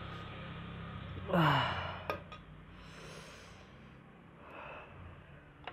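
A man's heavy sigh, his voice falling in pitch, about a second and a half in, from someone too full to keep eating. Softer breaths and the click of a metal fork against a ceramic plate follow.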